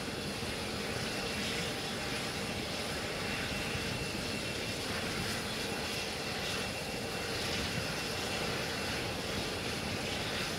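Steady jet engine noise on an aircraft carrier's flight deck: an even rushing sound that holds level throughout, with no sudden events.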